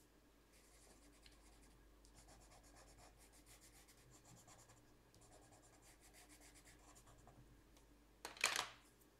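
Faint, quick scratching strokes of colouring on paper, several a second, with short pauses. A brief louder clatter comes near the end.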